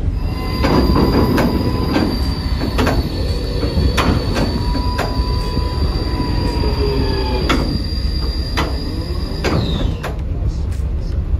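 Metal-on-metal squeal: a steady high-pitched squeal over a lower whine, with sharp clicks about once a second, stopping suddenly near the end.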